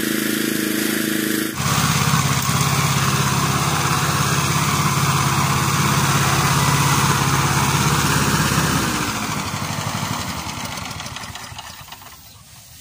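Small gasoline engine driving a blower for winnowing rice grain, running steadily and louder from about a second and a half in. It dies away over the last few seconds as it is shut off.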